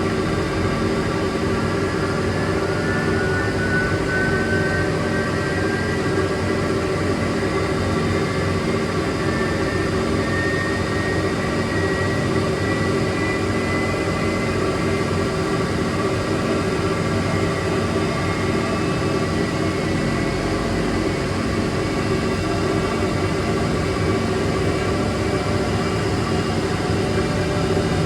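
Commercial coin-laundry washing machines running: a steady, loud motor hum with a faint whine rising slowly in pitch over the first half.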